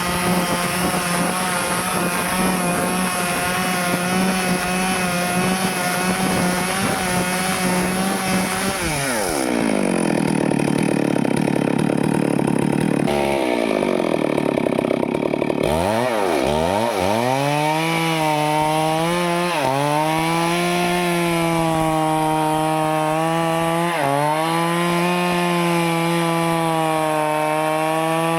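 Stihl chainsaw cutting teak, running at steady high revs. About nine seconds in its pitch falls sharply and stays low and ragged as the engine is pulled down under load. It picks back up about sixteen seconds in, with a short dip in revs every four to five seconds.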